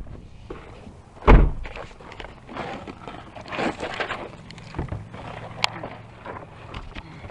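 A loud thunk about a second in, then clattering and rustling and a few sharp clicks as parts of a car's shifter assembly are handled and worked loose.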